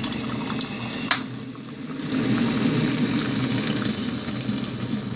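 Breville hot water dispenser pouring a stream of hot water into a ceramic mug: a steady pouring sound with a thin high whine. One sharp click about a second in.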